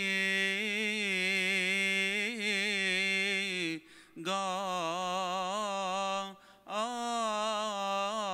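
A single man chanting a long, ornamented melisma of Coptic Orthodox liturgical chant, drawing out the call to hear the holy Gospel. He holds wavering notes and breaks twice for a quick breath, once about halfway through and again about two seconds later.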